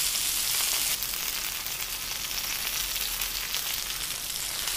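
Red snapper fish shallow-frying in hot oil on a tawa: a steady sizzle that drops slightly in level about a second in.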